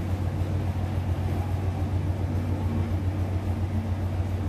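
A steady low mechanical hum with a faint even hiss behind it.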